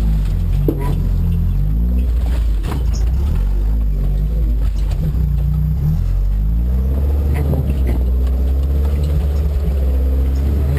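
Suzuki 4x4's engine running while driving off-road, its pitch dropping and rising as the revs change, with a few short knocks over rough ground.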